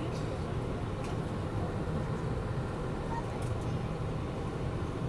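Steady low hum of an Airbus A319's engines at idle, heard inside the passenger cabin, with a few faint ticks.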